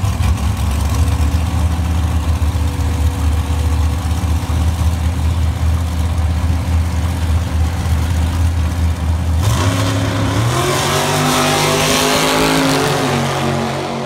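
Drag racing cars, one a long dragster, idling at the starting line with a steady low drone. About nine and a half seconds in they launch: a sudden loud burst of engine noise whose pitch climbs in steps as the cars accelerate away down the strip.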